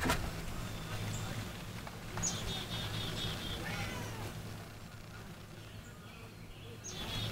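A bird singing outdoors: a falling note followed by a quick run of about five repeated high chirps, heard twice, over a low steady hum. A sharp knock comes right at the start.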